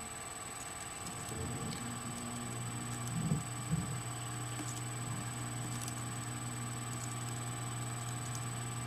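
A few faint, scattered computer keyboard keystrokes, typed slowly one at a time. A steady low hum comes in about a second and a half in and carries on beneath them.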